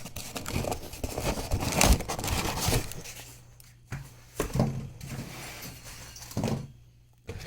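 A cardboard box being opened and handled: rustling, scraping and clicks, busiest in the first three seconds, then a few separate knocks.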